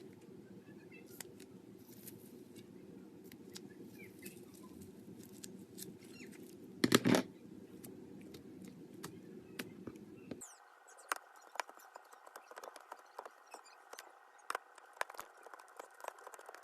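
Slime being squeezed and cut: many small sticky clicks and crackles, with one louder squelch about seven seconds in. About ten seconds in, the low background hum gives way abruptly to a higher hiss while the clicking goes on.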